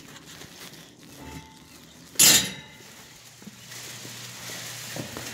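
Handling noise and steps at a house's front door, with one short, loud bump about two seconds in.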